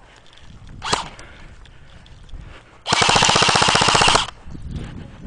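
Airsoft gun firing one rapid full-auto burst of about a second and a quarter, an even fast rattle of shots. A short sharp sound comes about a second before it.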